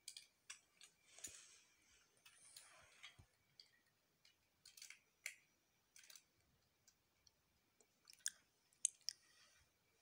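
Plastic Lego bricks being handled and pressed together: a scatter of small, irregular clicks with soft rustling between them, the sharpest clicks coming close together near the end.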